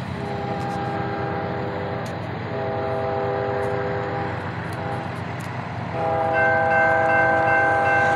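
Approaching locomotive's multi-chime air horn sounding a chord in repeated long blasts for the grade crossing, the last one held on, over a steady low rumble of the engine. Near the end the crossing-signal bell starts ringing as the flashing lights activate.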